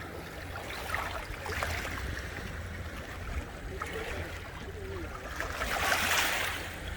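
Water splashing and washing around a kayak, with a steady low rumble underneath and a louder splash about six seconds in.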